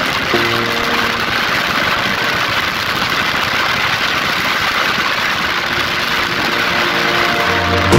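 Motorcycle running on the road: steady engine and road noise with wind on the microphone. Faint background music is heard just after the start and again near the end.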